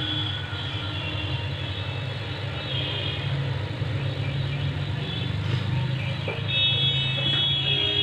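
Hot air rework gun's blower running steadily, a low hum with hiss, with a higher-pitched tone heard twice, about three seconds in and near the end.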